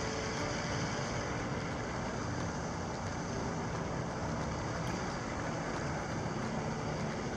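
Steady outdoor background noise: an even rumble and hiss with no distinct events.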